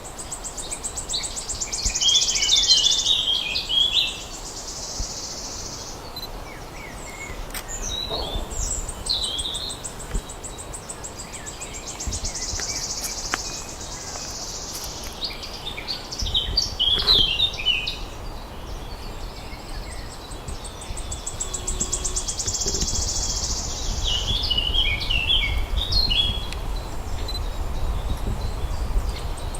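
A songbird sings the same phrase three times, about ten seconds apart. Each phrase is a high buzzing trill that breaks into a run of lower chirps. A steady high buzz runs underneath, and there are a few faint clicks.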